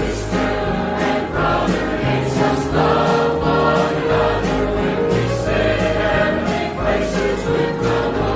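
Church choir singing a gospel hymn over instrumental accompaniment with sustained low notes, kept on a steady beat of sharp strikes about twice a second.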